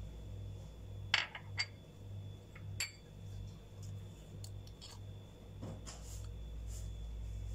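Small bowls being set down on a countertop: a few sharp clinks, the loudest about a second in, over a steady low hum.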